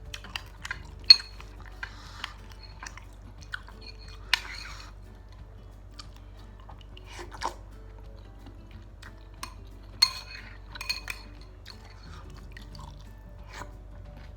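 Eating noodles and meatballs from a bowl: a spoon or chopsticks click against the bowl several times, sharpest about a second in and again about ten seconds in, with chewing in between. Underneath are a steady low hum and faint music.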